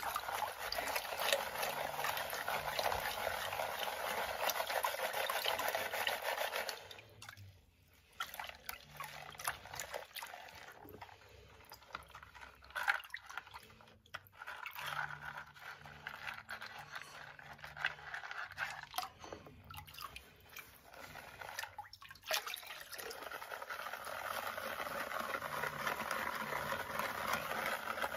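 Water sloshing and swishing as a plastic gold pan of river gravel is shaken and swirled under water in a tub, washing off the lighter sand and mud to work down to the black sands. Steady sloshing for the first several seconds, a quieter patch of scattered splashes in the middle, then steady sloshing again near the end.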